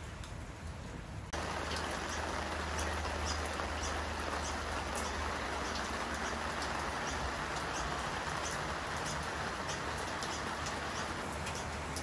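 Steady rain falling on a wet driveway: an even hiss with scattered drips, coming in suddenly about a second in.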